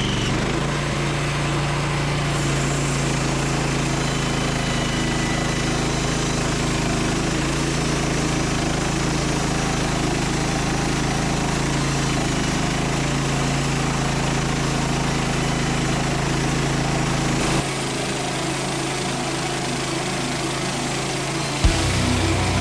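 Norwood Lumbermate LM29 portable band sawmill's small gasoline engine running steadily under way. Its tone shifts about three quarters of the way through, and a sharp knock comes just before it changes again near the end.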